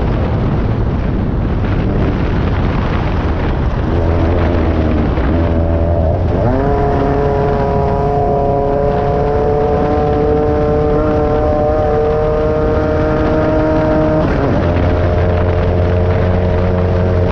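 On-board sound of a VW-powered Class 9 off-road race buggy at speed, its engine running hard over a constant rush of noise. The engine pitch climbs sharply about six seconds in, holds steady, then drops around fourteen seconds in.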